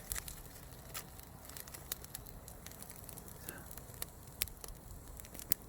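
Wood fire crackling, with scattered sharp pops at irregular intervals.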